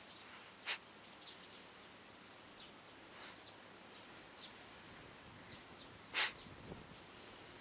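Shiba Inu sniffing with its nose in dry grass: two short, sharp sniffs or rustles, one about a second in and a louder one near the end, with a few faint ticks of stirred stalks over a steady outdoor hiss.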